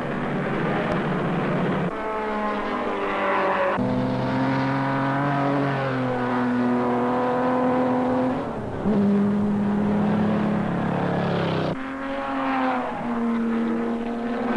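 Racing sports car engines running hard at speed, a steady droning engine note that jumps abruptly to a new pitch several times.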